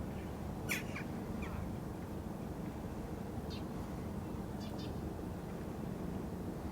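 A few short bird calls, the loudest about a second in and a pair near the five-second mark, over a steady low outdoor rumble.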